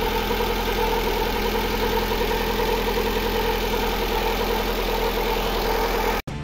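Lada Granta's freshly rebuilt eight-valve four-cylinder engine idling steadily, running without the ringing knock it had before the repair. It is cut off abruptly just before the end, where music begins.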